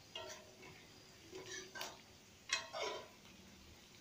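Metal ladle scraping and knocking against an iron wok, a few irregular strokes, stirring fried onions and chillies.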